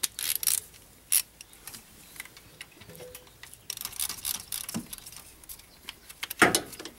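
Ratchet and socket clicking, with small metal tools clinking, while a fitting is worked loose on the high-pressure oil rail of a Ford 6.0 Powerstroke diesel. A louder metallic knock comes near the end.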